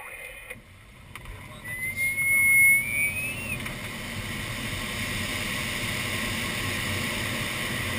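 Airflow rushing past an ASK-21 glider's canopy, building as the glider dives and gathers speed, then settling into a steady rush. A brief rising whistle sounds about two seconds in.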